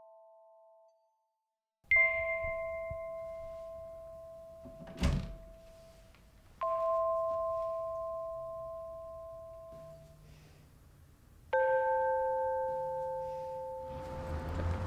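Sparse film-score music: three struck chords, each starting suddenly and ringing out, fading over several seconds, with a dull thud about five seconds in.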